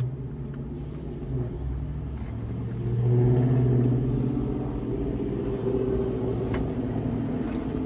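A car engine running steadily, with a low hum that swells louder for a second or two about three seconds in and then eases back.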